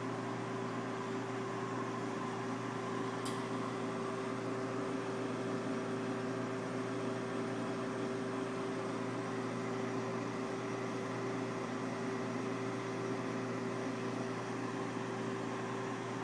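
Steady hum and whir of a running reef aquarium's equipment, holding a few steady tones over a soft hiss, with one faint high click about three seconds in.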